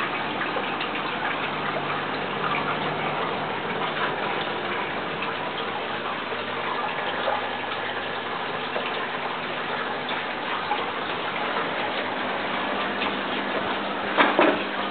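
Water splashing and trickling steadily in a small fish tank, with small ticks throughout and two louder clicks near the end.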